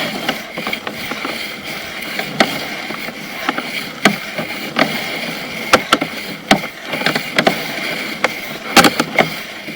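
Sewer inspection camera's push cable being fed by hand up a cleanout pipe: irregular knocks and clicks over a steady hiss, with a few knocks coming close together near the end.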